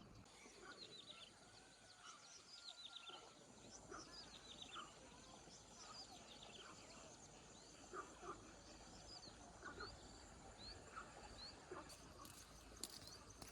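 Faint bird chirping: many short, high chirps that fall in pitch, come in quick series, and are mixed with a few lower short whistles.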